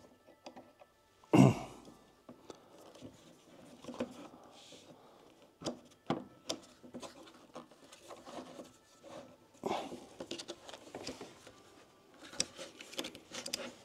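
Metal table leg and base plate of a flat-pack side table being handled and fitted together: a loud knock about a second and a half in, then scattered light clicks and taps, with a denser run of clicking near the end.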